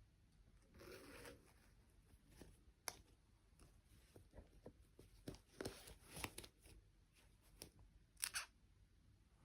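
Faint, scattered clicks, taps and short rustles of hands handling small objects: a rustle about a second in, a sharp click near the third second, a run of light taps in the middle and a short rustle near the end.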